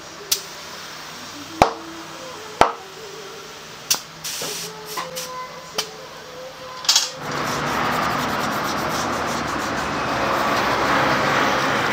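Short spurts of air hissing from a tyre inflator's chuck, with clicks and knocks, as a scooter's tubeless tyre is pumped up on its wheel. About seven seconds in, these give way to a steady rushing noise as the tyre is scrubbed with soapy water to check the bead for leaks.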